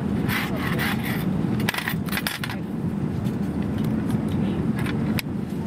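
Steel cutlery clinking and a wrapper rustling as a fork, knife and spoon are taken out of their pack on a tray table, with a few sharp clicks near the end. Underneath runs the steady low drone of an Airbus A380 cabin in flight.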